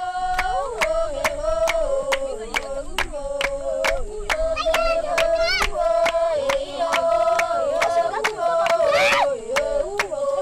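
San (Bushman) women singing a chant together, with steady, fast handclapping keeping the rhythm for a dance.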